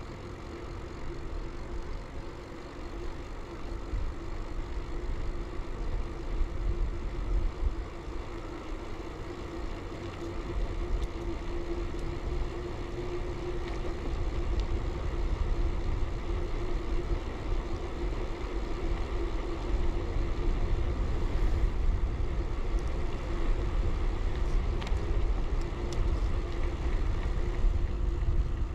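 Riding sound of an early-90s Bianchi Alante mountain bike on a road: steady tyre and road noise with a constant hum, and low wind rumble on a chest-mounted camera's microphone.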